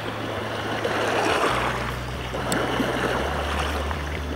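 Small waves washing and lapping along a shallow lake shoreline, an even wash of water, over a steady low hum.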